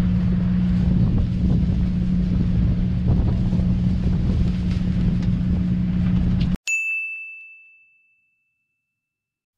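A boat's machinery humming steadily, a low drone on deck, that cuts off abruptly about six and a half seconds in. It is followed by a single high bell-like ding that rings out and fades over about two seconds.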